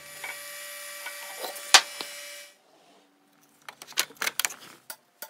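A steady hiss with a faint hum for about two and a half seconds, broken once by a loud sharp click. Then, about four seconds in, a quick run of hard plastic clicks and knocks as a red industrial power plug is snapped together onto its cable.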